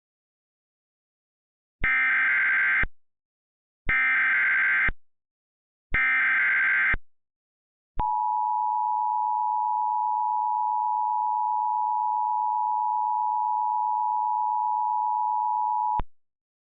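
Emergency Alert System tones: three one-second bursts of buzzy SAME header data about two seconds apart, then about eight seconds of the steady two-tone EAS attention signal, which cuts off abruptly. The alert opens a tornado warning.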